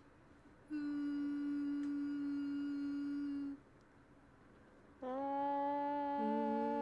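A woman humming one steady, unwavering note for about three seconds in imitation of a telephone dial tone. A second held hum starts about five seconds in, and a lower note from another voice joins about a second later, the two hummed together.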